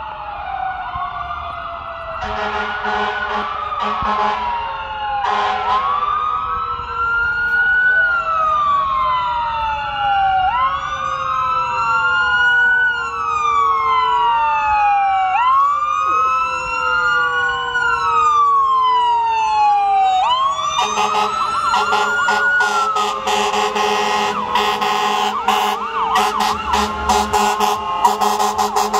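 Several fire-engine sirens wailing at once, their rising and falling sweeps overlapping as the trucks approach. About twenty seconds in they get louder, steady tones join in, and rapid sharp pulses fill the last several seconds.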